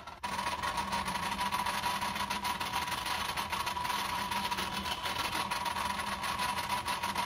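1940s Craftsman drill press running steadily, a whine over a low hum, while it drills small stitching holes in leather.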